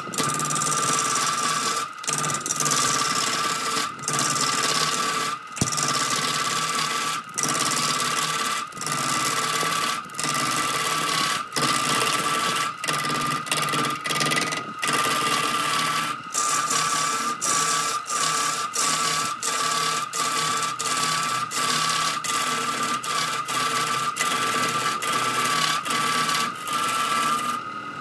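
Wood lathe running with a steady whine while a hand-held gouge shaves a spinning log blank, making a continuous hissing scrape. The sound dips briefly every second or so. Near the end the cutting stops, leaving the lathe's whine.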